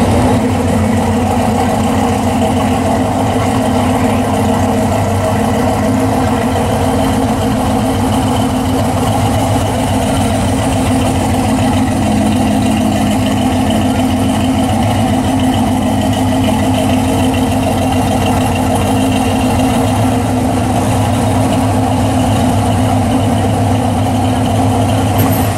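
Hot-rodded Chevy II Nova's engine idling with a steady, low rumble.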